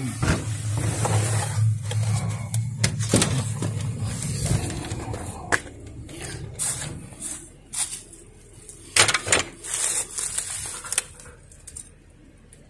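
Footsteps and scattered handling knocks as someone walks out through a door. A low steady hum, the Chinese diesel air heater running at full output, fades out after about four seconds.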